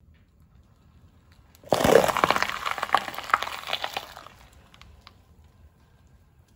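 A red bell pepper being crushed under a car tyre: a sudden crack about two seconds in, then a couple of seconds of crackling and snapping as the flesh splits, dying away.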